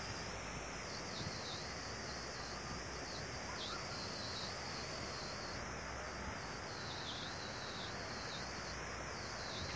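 Steady rushing of water pouring over a small concrete weir into a river.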